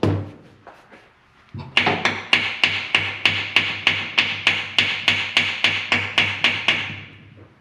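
A hammer strikes metal engine parts on the Can-Am Maverick 1000 engine in a steady series of sharp blows, about four a second for around five seconds, growing fainter near the end. The blows are tapping a stuck part loose during teardown.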